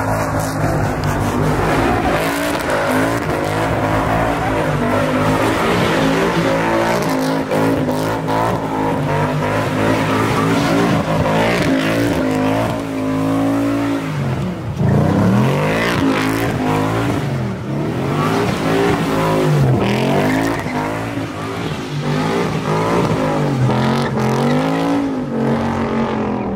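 Car engine revving hard while the car spins its tyres in burnouts and donuts, with the rear tyres squealing and skidding. In the second half the revs rise and fall over and over, about every second and a half.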